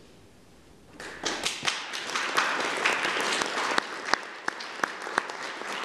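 Audience applauding, starting about a second in after a short hush, with a few sharp single claps standing out near the end.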